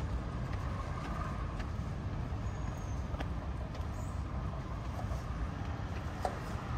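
Road traffic on a city street: motor vehicles running past in a steady low rumble, with a few faint clicks on top.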